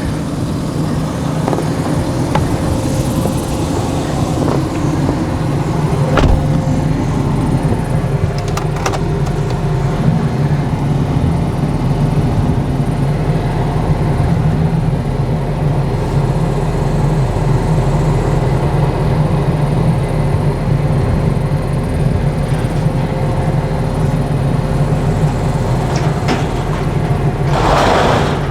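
Truck engine running steadily while towing a carport frame, with a couple of sharp knocks partway through.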